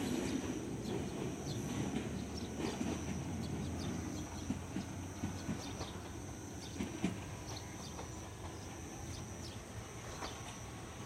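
Electric commuter train of the Toyama Chihō Railway moving away down the line: a low rumble that slowly fades, with scattered clicks of wheels over the rails.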